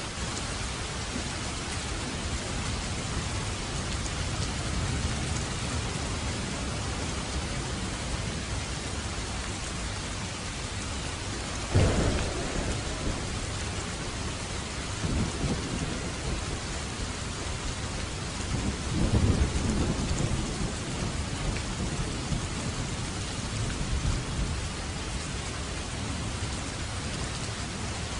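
Steady heavy rain falling, with thunder: a sharp crack about twelve seconds in, followed by several low rolling rumbles.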